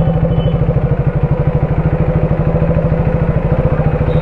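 KTM RC 390's single-cylinder engine running at a steady, even pitch with no revving.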